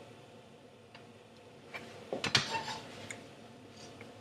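A few light, scattered clicks and taps of kitchen utensils against a pan, with a short cluster of louder taps about two seconds in.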